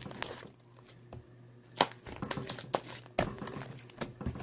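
Slime being squished and kneaded by hand: scattered sticky crackles and pops, sparse at first and denser from about halfway. The slime is still sticky, short of activator.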